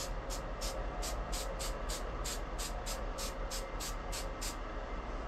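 Aerosol can of spray primer hissing in short quick bursts, about three or four a second, stopping about four and a half seconds in.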